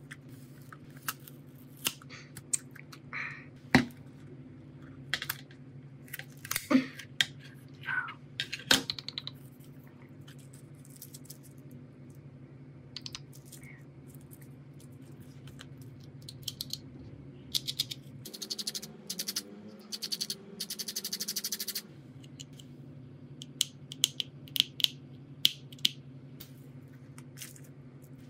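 Small, irregular clicks and taps of hand tools and phone parts being handled during a phone teardown, with a fast rattling run for a few seconds past the middle, over a low steady hum.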